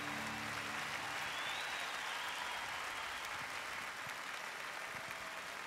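A large audience applauding, easing off slightly toward the end, while the last held notes of the music die away in the first second.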